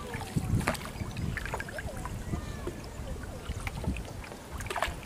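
Water gurgling and splashing around a small wooden boat as it is paddled through water hyacinth, with scattered little splashes over a low rumble.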